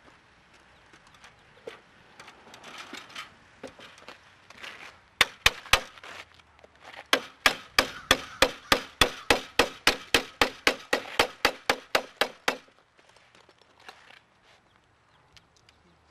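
Hammer nailing a perforated steel joist hanger onto the end of a wooden floor joist: a few blows about five seconds in, then a steady run of about twenty quick blows at roughly four a second. Softer handling and rustling of the hanger and wood before and after the hammering.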